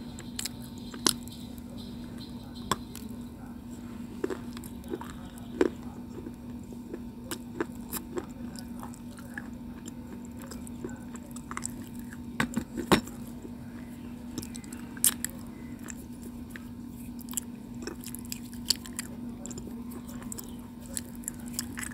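A person biting and chewing chunks of white slate stone, an edible chalky clay, with irregular crisp crunches and clicks, the loudest a cluster about 13 seconds in. A steady low hum runs underneath.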